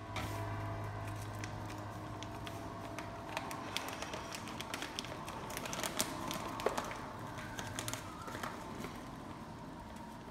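Kraft paper coffee bag crinkling and crackling as its top is folded down, with a steady low hum underneath that fades near the end.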